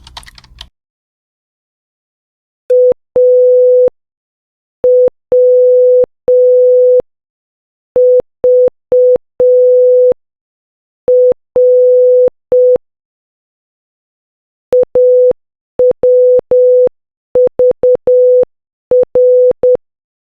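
Morse code sent as beeps of a single steady tone near 500 Hz, spelling AWVR (.- .-- ...- .-.) slowly with clear gaps between the letters. About fifteen seconds in, the same sequence starts again at a faster speed.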